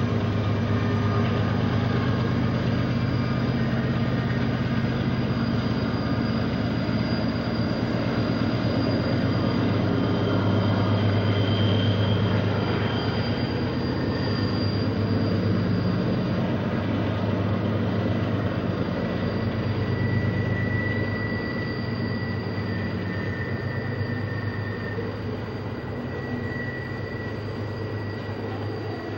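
Diesel freight locomotives working a heavy double-stack container train around the tight Tehachapi Loop curve: a steady deep engine drone, with thin high-pitched wheel squeals coming and going. The drone slowly fades in the last third as the train moves on.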